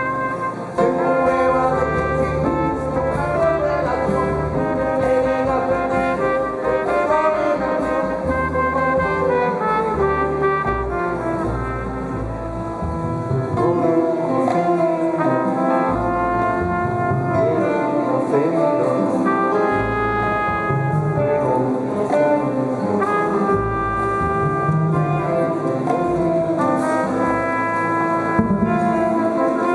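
Live jazz band playing, with long held melody notes over a bass line that moves every second or two.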